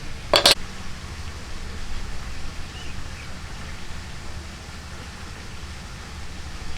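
Two sharp knocks in quick succession, about half a second in, typical of hand-tool work striking wood, over a steady low background noise.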